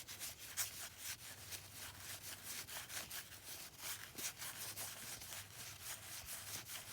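Faint, quick scratchy rubbing of cardboard baseball cards sliding over one another as a stack is thumbed through.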